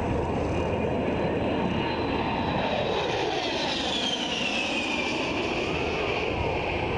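A-10 Thunderbolt II jet flying past overhead, its twin TF34 turbofans giving a steady rush with a high whine that falls in pitch a few seconds in as it goes by.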